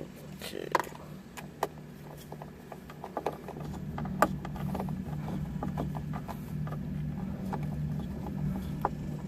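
A screwdriver driving in a screw on the car's dashboard trim: scattered small clicks and taps, with a steady low mechanical hum that grows louder a few seconds in and stops near the end.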